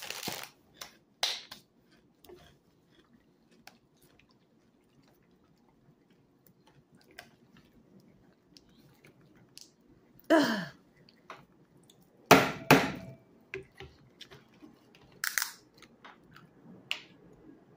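Close-up chewing of crunchy Funyuns onion-flavoured rings, with scattered small clicks. A little after halfway come handling noises with two loud knocks, and near the end a plastic drink bottle's cap is twisted open.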